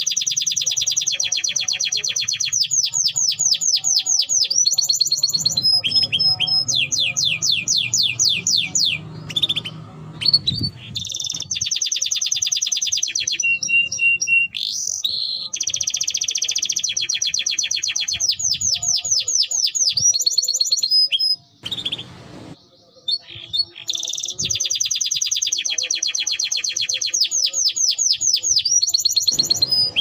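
Domestic canary singing a long, loud song of fast trills and rolling repeated notes, with a brief pause about two-thirds of the way through.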